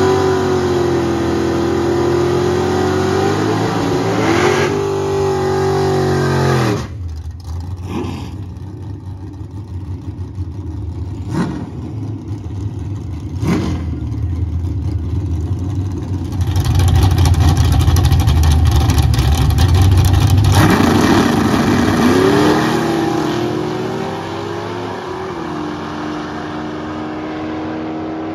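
Drag-racing car engines revving hard at the starting line, then full-throttle launches and a run down the strip. A few sharp cracks come in the quieter middle stretch, and a steadier engine note fades off near the end.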